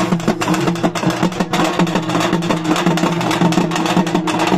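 Music with fast, steady drumming over a sustained low droning tone.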